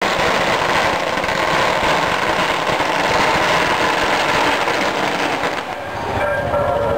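A long string of firecrackers hung from a crane going off in a dense, continuous crackle of rapid bangs, thinning briefly about six seconds in.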